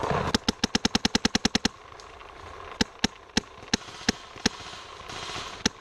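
Paintball marker firing: a fast string of about a dozen shots at roughly ten a second, then a handful of single shots a fraction of a second apart, and one more near the end.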